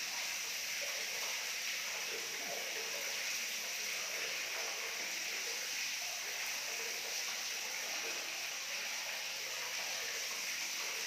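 Steady outdoor hiss of a riverbank, with faint rustling of footsteps through grass and dry bamboo leaves.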